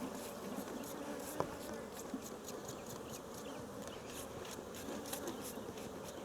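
Honey bees buzzing around an opened top bar hive, a steady drone with many short high streaks from bees close by. A single sharp click about a second and a half in.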